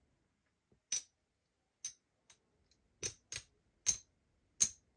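Casino chips clicking as they are set down and stacked on the box numbers of a craps layout: six or seven short, sharp clicks at irregular intervals.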